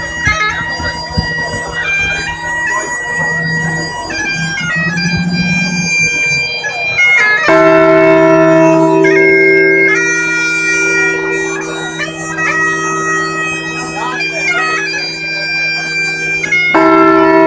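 A wind instrument playing a tune over two steady drone notes, the melody stepping from note to note; it gets louder about seven and a half seconds in.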